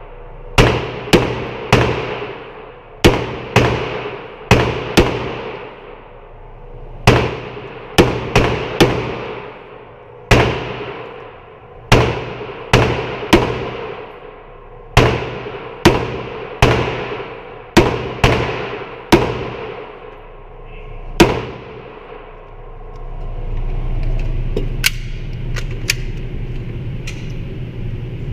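Semi-automatic pistol fired again and again, about twenty shots at uneven intervals, some in quick pairs and threes, each followed by a ringing echo. The shooting stops about three quarters of the way in, leaving a steady low hum.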